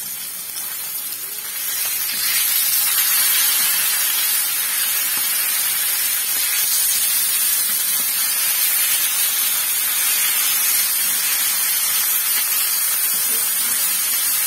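Fish pieces sizzling in hot oil on a dosa griddle: a steady, even hiss that gets louder about two seconds in, as the pieces are turned over onto their raw sides.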